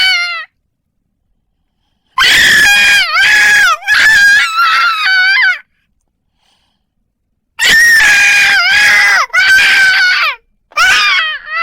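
A person screaming in short, high-pitched cries: a tail of one scream right at the start, then a burst of three screams about two seconds in, a pause of about two seconds, and another burst of three near the end.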